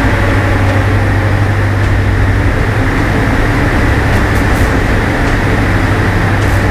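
Diamond DA42 Twin Star's propeller engines droning steadily, heard inside the cockpit.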